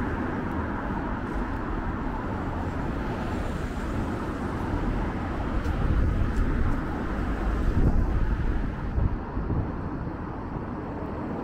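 City street traffic noise: a steady rumble of road vehicles that swells for a couple of seconds around the middle.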